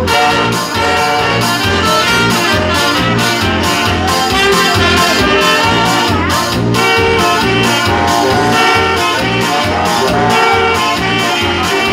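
A small band of trumpet and saxophones playing a lively tune live over a steady bass beat.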